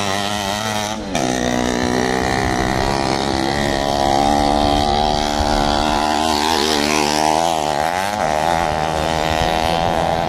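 Racing dirt-bike engines revving up and down as the motorcycles ride the track, the sound breaking off and jumping about a second in.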